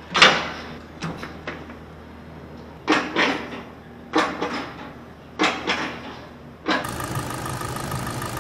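A few sharp knocks and clunks, then about seven seconds in the 2012 Kia Soul's 2.0-litre four-cylinder engine starts and settles into a steady idle, running without misfires on its new spark plugs and ignition coils.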